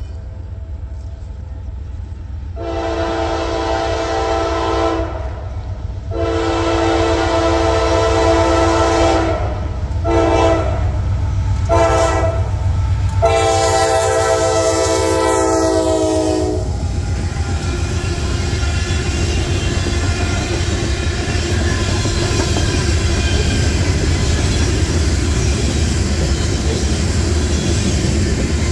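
Freight locomotive horn on a Norfolk Southern train sounds a series of blasts: two long, two short, then a long one that ends about 16 seconds in, the pattern blown for a grade crossing. The train's engines and then its freight cars follow, rumbling and clacking steadily past on the rails.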